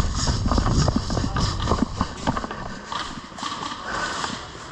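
Running footsteps with gear rattling, as quick irregular knocks over a low rumble. They thin out and get quieter after about two and a half seconds.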